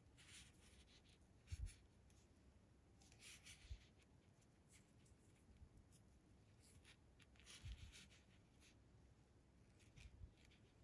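Faint rustling and scratching of fingers handling and twisting thin fishing line, with a few soft low bumps from the hands.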